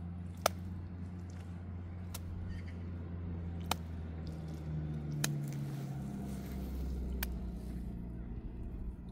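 Five sharp knocks, roughly one every second and a half to two seconds, over a steady low hum; the first knock is the loudest.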